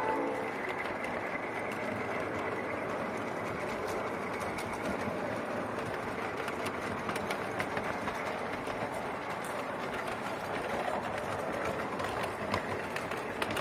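5-inch gauge ride-on miniature railway train running along its track, heard from the riding car: a steady rolling rumble and clatter of wheels on rail, with scattered sharp clicks as the wheels pass rail joints and points.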